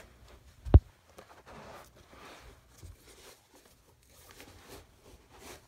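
Nike sneakers being pulled on and handled on carpet: faint rustling and shuffling, with one dull thump less than a second in.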